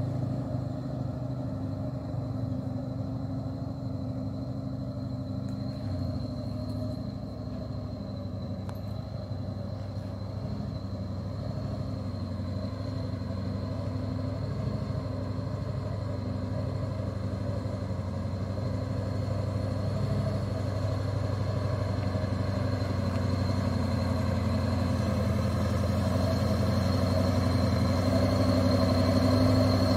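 Diesel engine of a loaded Mitsubishi Fuso Fighter truck pulling up a dirt hill, a steady low drone that grows louder as the truck comes closer.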